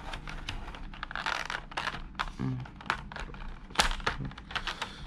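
A clear plastic blister tray crinkling and clicking as its clear plastic cover is pulled off by hand, with one sharper snap about four seconds in.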